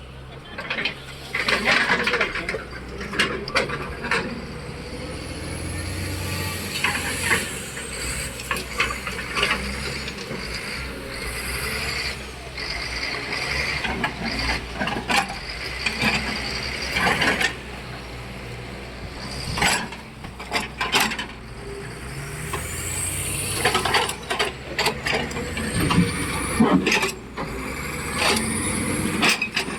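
Heavy earthmoving machines at work loading a dump truck: diesel engines running under a steady drone, with repeated knocks and clatter all through. A few high squeals glide up and down, mostly near the end.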